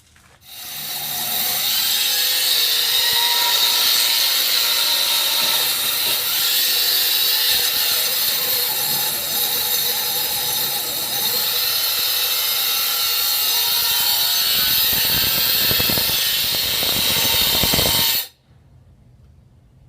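Angle grinder fitted with a wire wheel spinning up about half a second in and scrubbing down welded metal pipe. It runs steadily with a high, rough scraping, cleaning the welds and surface ready for paint, and cuts off abruptly near the end.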